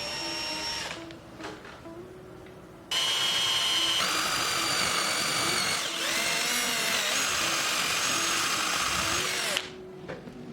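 Electric angle grinder running at high speed with a high whine. It is run briefly near the start, then again from about three seconds in until it cuts off near the end, its pitch shifting twice while running.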